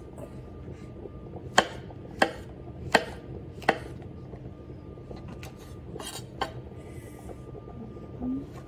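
Chef's knife slicing brown champignon mushrooms on a wooden cutting board: four sharp knocks of the blade hitting the board about two-thirds of a second apart, then a couple of lighter ones.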